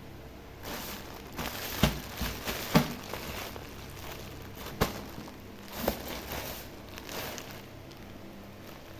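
Packaging crinkling and rustling as it is handled and opened, with a few sharp clicks or taps in between.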